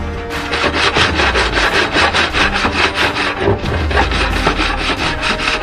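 Rusty metal clamp being scrubbed with a coarse abrasive: a continuous, rapid, rough rasping with many strokes a second.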